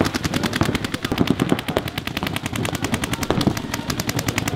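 Paintball markers firing in rapid, even streams of shots, about ten a second.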